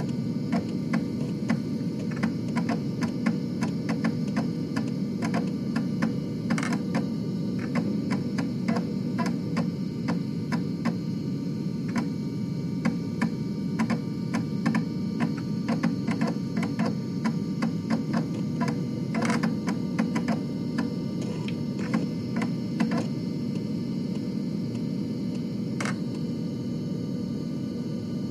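Floppy disk drive at work: a steady low whir from the spindle motor under irregular clicks and ticks of the read head stepping across the disk. The clicks grow sparse near the end.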